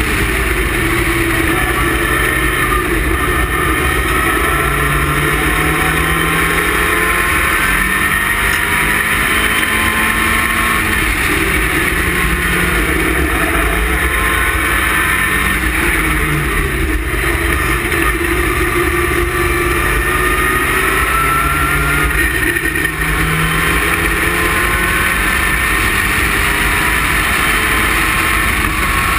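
Westfield sports car's engine at racing speed, heard from the open cockpit: the pitch climbs, drops back and climbs again as it runs up through the revs and shifts gear, over a steady rush of wind and road noise.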